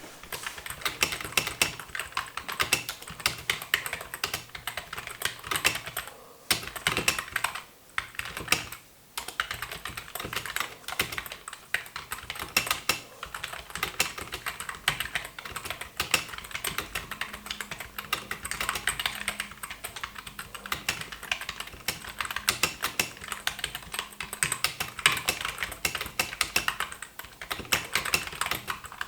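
Fast typing on a white 2005 Apple Keyboard (A1048): a quick, continuous clatter of key presses, with two or three short pauses about a third of the way in.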